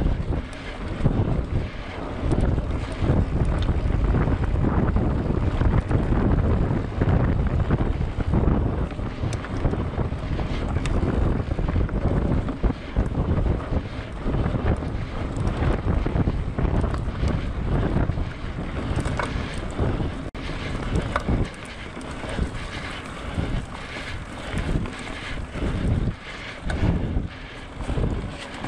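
Heavy wind buffeting on the microphone, an uneven low rumble, with a constant scatter of small knocks and rattles. It eases somewhat in the last few seconds.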